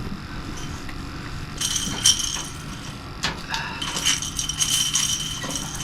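Light metallic jingling and clinking in two spells, about two seconds in and again around four to five seconds, over a faint low steady hum: metal fishing tackle rattling as a freshly landed catfish is handled.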